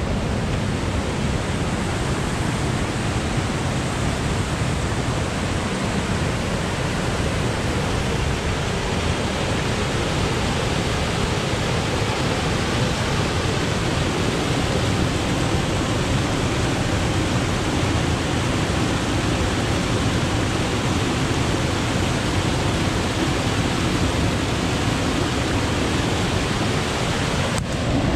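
Havasu Falls, a large waterfall, rushing steadily close up: a dense, even wash of falling water.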